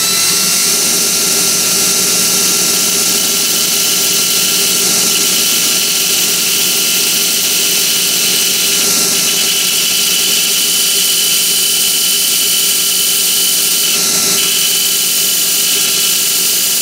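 A fixed belt sander and a cordless drill run together while a cork pad spun in the drill is trimmed round against the moving sanding belt. A steady motor whine runs under the sanding noise, and the sanding noise shifts a couple of times as the cork's contact with the belt changes.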